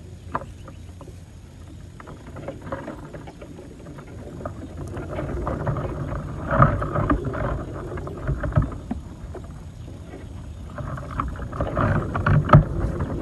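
Water splashing and sloshing with scattered knocks, building in two louder swells, one in the middle and one near the end.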